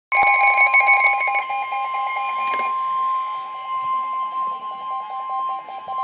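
Midland weather alert radio sounding a warning alarm: loud, rapid beeping over a steady high tone that starts suddenly. A click comes about two and a half seconds in, after which the beeping is fainter while the steady tone carries on.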